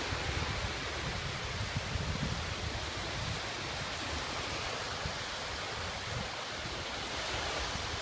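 Small waves washing and breaking in shallow water along the shore, with wind buffeting the microphone as a steady low rumble.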